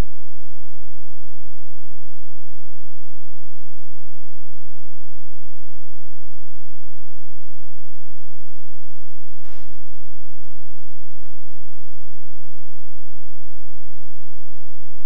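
Loud, steady electrical mains hum with many evenly spaced overtones, with a single brief click about nine and a half seconds in.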